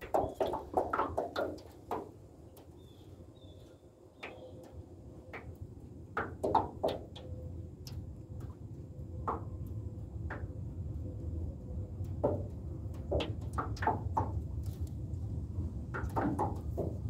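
Small waves slapping and knocking against the side of a metal jon boat in short, irregular knocks, over a low wind rumble on the microphone that grows stronger in the second half.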